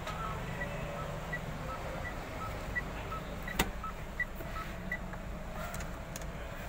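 Mitsubishi Xpander Cross's in-car warning chime beeping steadily, alternating a higher and a lower tone about every 0.7 seconds, with one sharp click about three and a half seconds in.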